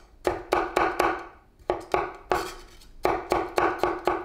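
Cleaver chopping a peeled carrot into thin strips on a wooden cutting board: a run of sharp knocks of the blade on the board, about four a second, with a short pause about a second in.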